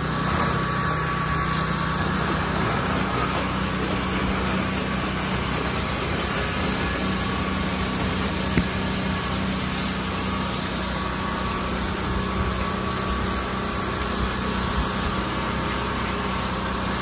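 Gas pressure washer's engine running steadily under load, with a steady hiss of spraying water; a single sharp click about halfway through.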